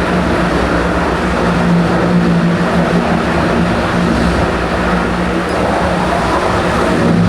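Wood chipper running steadily, a continuous loud machine noise with a constant engine hum underneath.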